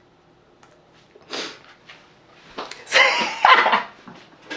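A person's voice in short wordless outbursts: a brief breathy sound about a second in, then a louder, pitch-bending vocal outburst around three seconds in.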